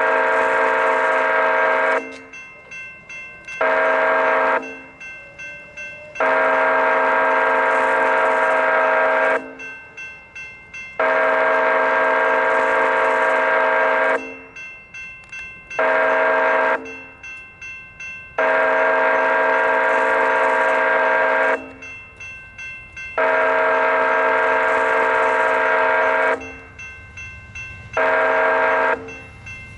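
Locomotive air horn of an approaching freight train blowing for the crossing: a run of long blasts broken by short ones, several notes sounding together as a chord. In the gaps the crossing's warning bell rings rapidly, about four strokes a second.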